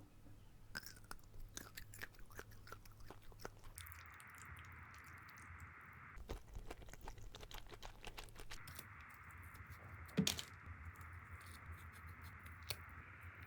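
Close-up eating sounds: chewing and biting, heard as clusters of small clicks and crunches. There is one louder knock about ten seconds in.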